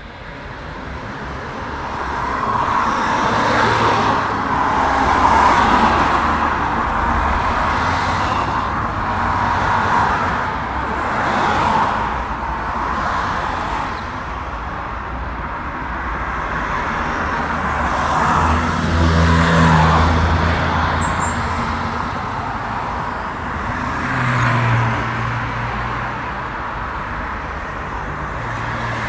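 Road traffic: a steady stream of cars passing by, with tyre and engine noise swelling and fading as each one goes past. It fades in over the first couple of seconds, and the loudest passes come about 5 and 20 seconds in, with a deep engine hum on the passes about 20 and 25 seconds in.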